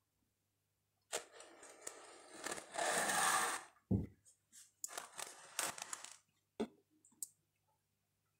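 Wooden cutting board scraping against the countertop as it is turned, with a knock just before four seconds in, more scraping after it and two light clicks near the end.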